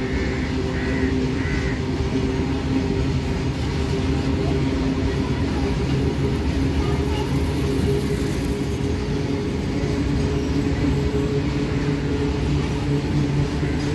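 Open-top freight wagons of a goods train rolling past steadily: a continuous rumble of wheels on rail with a few steady droning tones under it. Three short, high notes about a second apart sound in the first two seconds.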